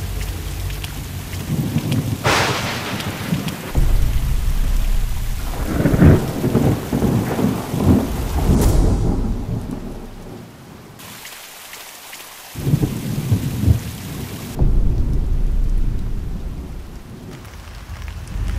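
Thunderstorm: steady rain with repeated deep rolls of thunder that swell and fade, a sharp crack about two seconds in, and a short lull in the rumbling about two-thirds of the way through before it returns.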